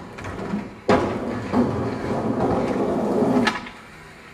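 Skateboard wheels rolling across a flat roof, with a sharp knock about a second in, then the snap of the tail popping an ollie off the edge near the end, followed by a short hush while the board is in the air.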